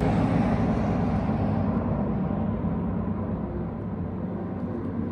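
A car's rumbling drive noise, cutting in abruptly; its upper hiss dulls over the first two seconds while the low rumble holds steady.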